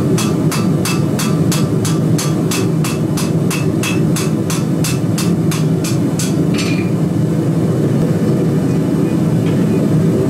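Hand hammer striking a hot steel bar on an anvil in a steady rhythm of about three blows a second, stopping about six and a half seconds in. A steady low roar runs underneath.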